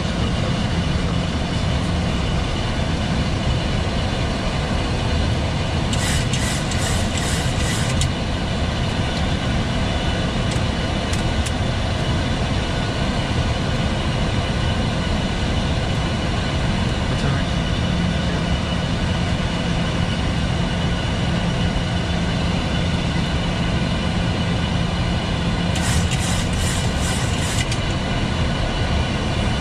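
Steady flight-deck noise of a Boeing 737-800 on approach: a continuous rush of air with a low hum running under it. Two short runs of rapid clicking come about six seconds in and again near the end.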